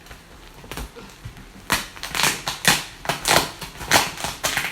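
Scotch tape being ripped and peeled off the bubble-wrapped packaging of a boxed printer, in a quick run of short, scratchy rips starting about a second and a half in.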